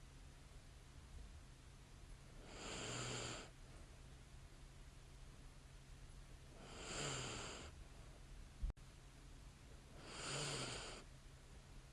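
A sleeping woman breathing slowly with light snores: three breaths about four seconds apart, each lasting about a second, with a faint low buzz in each. A single sharp click comes about two-thirds of the way through.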